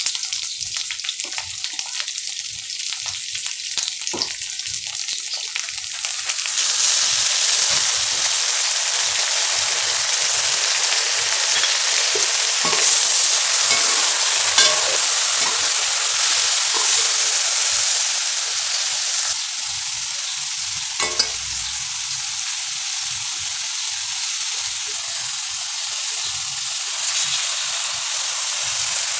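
Okra and onions sizzling in hot oil in a metal pan while a slotted metal spatula stirs them, with scattered scrapes and taps of the spatula against the pan. The sizzle grows louder about six seconds in.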